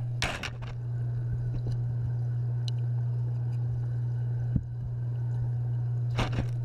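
Muffled sound picked up through a GoPro's sealed waterproof housing: a steady low hum, with handling scrapes and knocks on the housing near the start and near the end, and a single sharper knock about four and a half seconds in.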